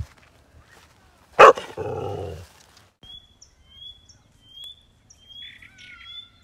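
A dog barks once, loud and sudden, about a second and a half in. After that, short high chirps repeat at an even pace, roughly one every 0.7 seconds.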